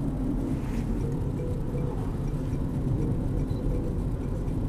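Car driving along a paved road: a steady rumble of engine and tyres.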